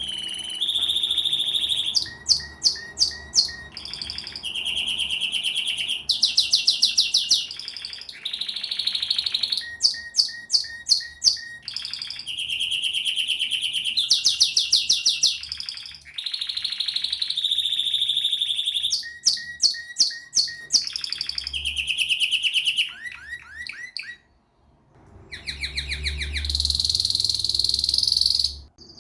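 Domestic canary singing a long, high-pitched song made of one phrase after another, each a run of quickly repeated notes or a fast rolling trill. It breaks off for about a second near the end, then resumes with another rolling phrase.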